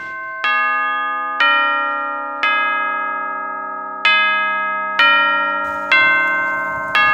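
A slow tune of bell-like chime notes: seven struck notes, mostly about a second apart, each ringing on and fading as the next begins.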